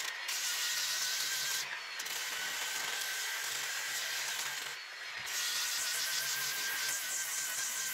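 DeWalt angle grinder with a rubber-backed sanding disc sanding the rim of a wooden wheel: a steady motor whine under a sanding hiss. The sound eases briefly twice, about two seconds in and again about five seconds in.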